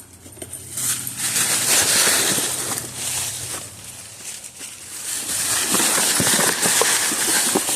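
Cardboard box being chewed and dragged about by dogs at play: rustling and scraping, with a run of crackling ticks in the second half.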